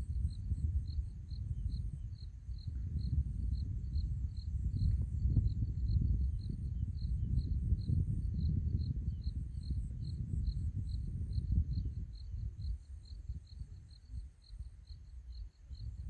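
Wind gusting with a low rumble that swells and eases, dipping briefly near the end. A faint high chirping repeats evenly about twice a second throughout.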